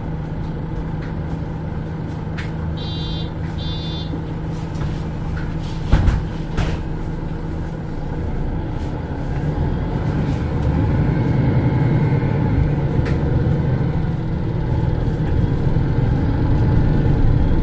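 MAN NL323 Lions City Euro 6 city bus driving, its diesel engine running with a steady drone that grows louder from about ten seconds in. Two short electronic beeps come about three seconds in, and a single thump about six seconds in.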